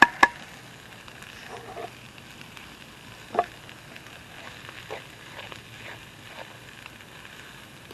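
Canned corned beef sizzling steadily in a metal mess kit over a small wood fire, with a few sharp pops and clicks, two near the start and one about three and a half seconds in.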